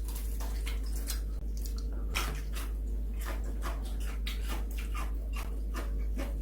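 Close-up eating sounds of fried chicken: wet, irregular smacking and clicking of chewing, a few per second, over a steady low hum.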